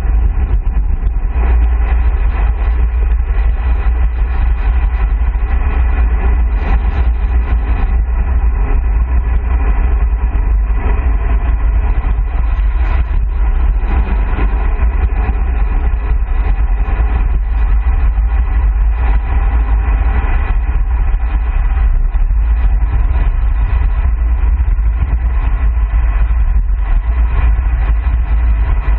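Wind rushing over a handlebar-mounted camera's microphone on a road bike descending at about 45 to 55 km/h: a loud, steady, deep rumble with tyre and road noise beneath.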